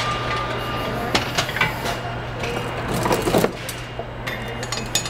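Assembly-line factory floor: a steady machinery hum with scattered clanks and knocks of parts being handled at the workstation, the loudest cluster about three seconds in.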